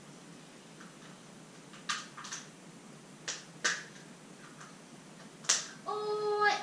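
About five sharp clicks of plastic Easter egg halves being handled and snapped open, spread out with pauses between. In the last moment a child's voice holds a short note.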